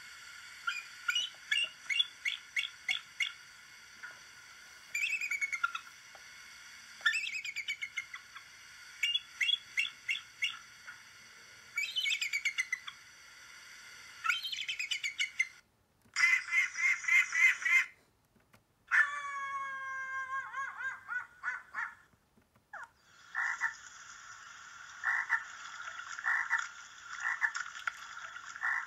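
Recorded eagle calls played through a laptop speaker: quick high chittering runs that fall in pitch, and a long downward-sliding scream. Near the end they give way to a frog croaking in pulses about once a second.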